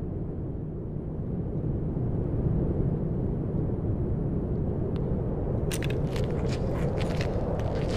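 A low, steady rumbling drone, with a metal key clicking and rattling in an ornate brass door lock from about six seconds in.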